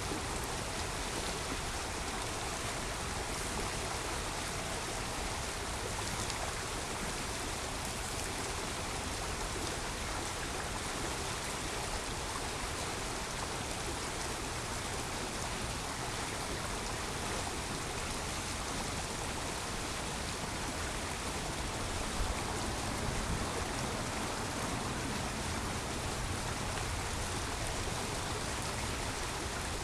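Creek water flowing with a steady, even rush.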